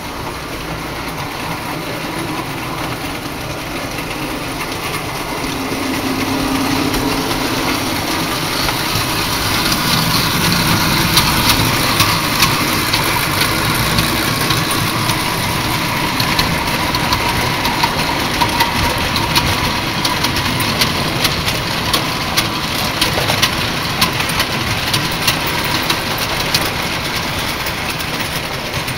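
Gauge 0 tinplate model train running on metal track: a steady rattling rumble that grows louder as it approaches over the first ten seconds, then a rapid run of sharp clicks from the wheels over the rail joints as the locomotive and wagons pass close by.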